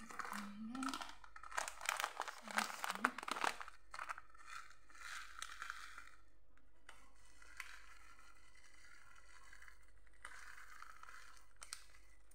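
Plastic-foil packet of chocolate sprinkles crinkling loudly as it is picked up and handled for the first few seconds, then softer, steadier rustling as the packet is shaken over the bread.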